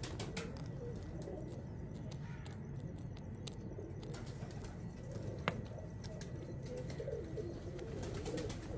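Soft, low pigeon sounds, with one sharp click about five and a half seconds in.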